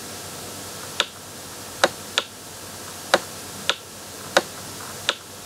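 A stylus clicking and tapping against a tablet screen while writing by hand: seven sharp, irregularly spaced clicks over a steady faint hiss.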